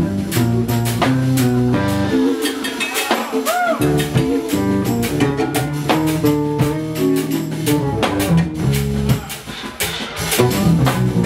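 Live jazz-fusion band playing: electric bass lines and drum kit in a busy groove. About two seconds in, the bass drops out for a moment while a note bends up and back down, then the groove comes back in.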